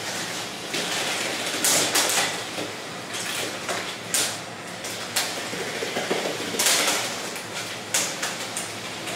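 Lego combat robots fighting: a steady mechanical whir from the spinning bar weapon and drive motors, broken by several sharp plastic clacks and clatters as the spinner strikes the ring-shaped Lego robot.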